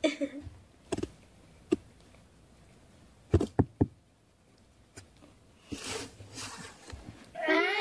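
A few sharp taps and knocks, including three in quick succession in the middle, as a puppy lying on its back squirms under a tickling hand; right at the end the puppy starts a wavering whine.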